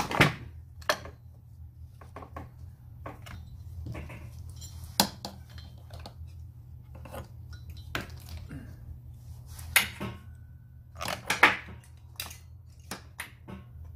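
Metal parts of a brush cutter clinking and knocking as the clutch assembly is handled and fitted back onto the engine: scattered sharp clicks, the loudest knocks about ten and eleven seconds in, over a steady low hum.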